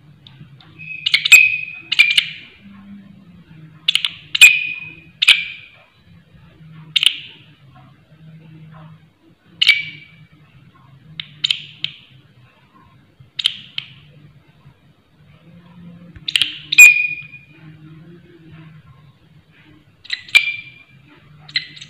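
Large green leaf-mimic katydid (walang kerik) calling. It gives a string of loud, short raspy chirps, each opening with a sharp click and carrying a ringing note. They come irregularly, every second or two, some in quick pairs.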